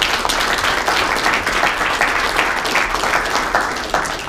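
Audience applauding: many people clapping together in a steady, dense patter.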